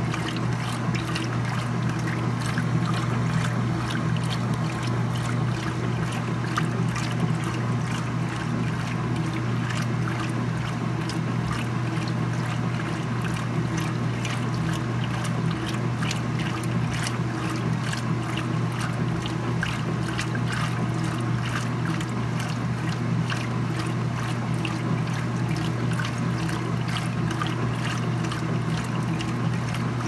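Speed Queen top-load washing machine agitating a full tub of laundry: a steady motor hum with water sloshing around the agitator.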